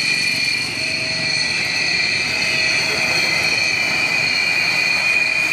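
Jet fighter's engine running at high power as the aircraft rolls down the runway: a steady roar with a high, steady whine over it.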